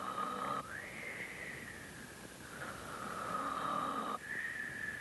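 Cartoon snoring of the sleeping wolf in two breaths. A low snore with a held whistle-like tone over it alternates with a higher whistling exhale that rises and then slowly sinks.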